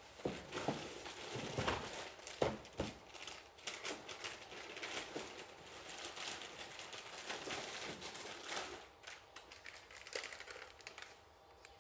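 Irregular crinkling and rustling with light clicks and knocks, as of material being handled, heaviest in the first few seconds and thinning out near the end.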